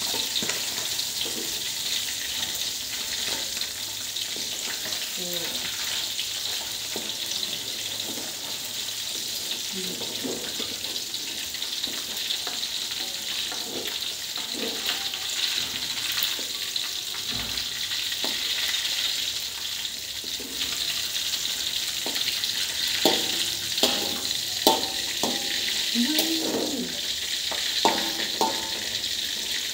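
Indian mackerel deep-frying in a wok of hot oil, a steady sizzle throughout. In the last several seconds a metal spatula clinks and scrapes against the wok a few times as the fish are turned.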